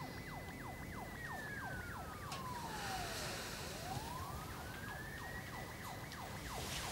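Emergency vehicle sirens. One wails slowly: a high held note slides down to a low one about three seconds in and climbs back up. Over it runs a rapid yelp of short falling sweeps, about four or five a second.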